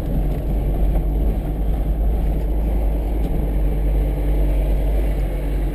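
A vehicle engine running steadily with a low rumble while driving along a rough dirt road, heard from on board.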